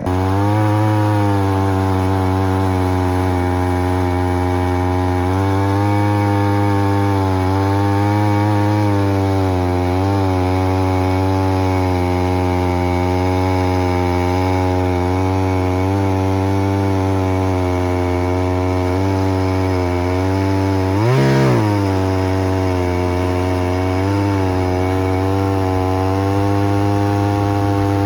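EFCO chainsaw on an Alaskan mill running at high, steady revs as it rips a lengthwise slab cut through a log. About two-thirds of the way through, the revs briefly climb and drop back.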